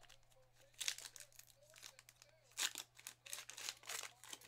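Plastic-foil wrapper of a trading card pack crinkling and tearing as it is opened by hand, in short bursts. There is one about a second in, then a denser run from about two and a half seconds in.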